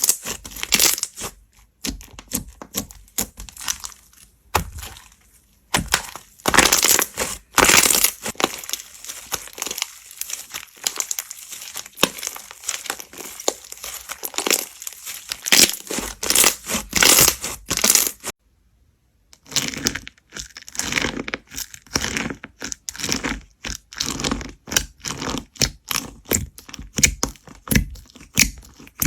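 Slime being squeezed, pressed and stretched by hand, making dense crackling, popping and squelching clicks, with a brief silence about two-thirds of the way through.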